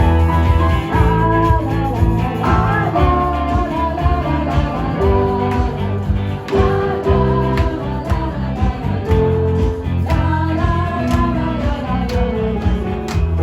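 Live band playing a song: a guitar-led tune over a steady bass line, with a voice singing the melody.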